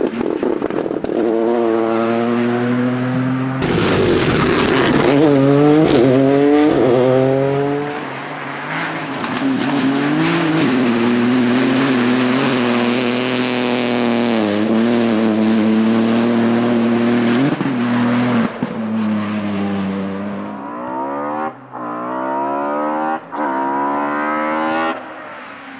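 Rally cars at full throttle passing, each engine note climbing and breaking off at the gear changes, then climbing again. A sudden burst of noise comes about four seconds in, and tyres squeal briefly.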